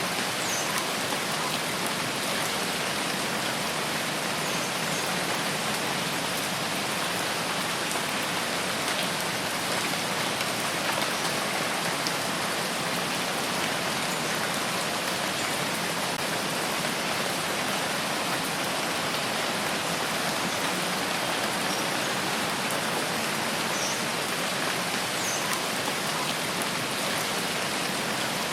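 Steady rain falling on foliage and ground: an even hiss of many drops that does not change. A few faint, brief high chirps show through it now and then.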